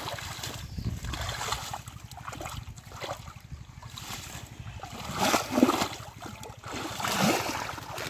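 Hands groping in shallow muddy water and pulling up clumps of water hyacinth, with irregular sloshing and splashing; the loudest splashes come about five and about seven seconds in.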